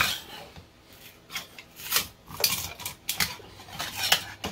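A 3D print being pried and scraped loose from the printer's build plate by hand: a string of short clicks, scrapes and clinks of plastic against the bed.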